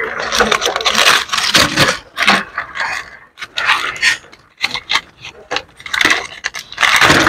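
Dry leaves rustling and crackling as a leaf-wrapped bundle is handled and its leaf-strip ties are pulled off, with irregular scraping and rubbing.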